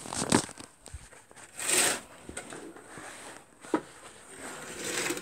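Phone microphone rubbing and scraping against a fabric hoodie: irregular rustling with a few clicks and a louder burst of noise about two seconds in.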